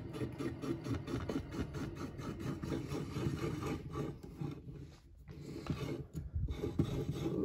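Hand gripper test rig being backed off by hand to release its load: a fast, regular rubbing scrape from the turning mechanism that fades out about four seconds in, followed by a few light handling knocks.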